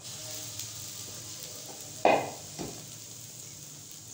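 Chana dal and pumpkin curry bubbling and sizzling in a pan, uncovered after about ten minutes of covered cooking and now done. About two seconds in comes a loud ringing metal clank, with a smaller one just after.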